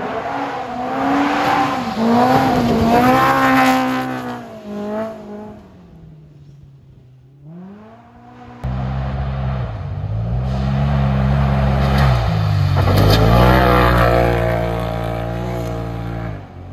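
Off-road race vehicles passing at speed on a dirt track, their engines revving up and down as the throttle changes. The first pass fades away, then about halfway through a second comes in suddenly and louder, peaking near the end before it fades.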